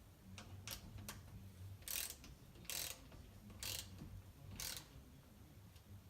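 Ratchet wrench running bolts back into a dirt bike engine: a few light clicks, then four ratcheting strokes about a second apart.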